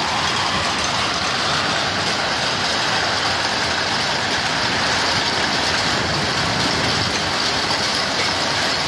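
Heavy hail falling during a severe hailstorm, hailstones pelting the ground in a dense, unbroken noise that stays steady throughout.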